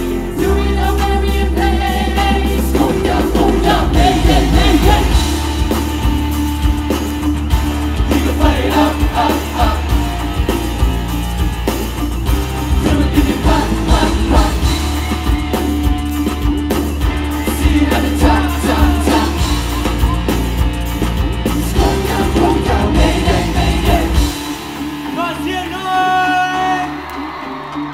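Live pop-rock song: a boy group singing over a band with electric guitar, bass and drums. About 24 seconds in, the bass and drums drop out and the music thins to lighter voices and instruments.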